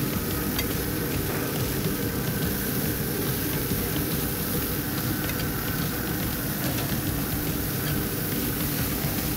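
A wood pellet grill running hot with its lid open: a steady rushing noise from its fan and fire, with a few faint clicks of metal tongs on the grate.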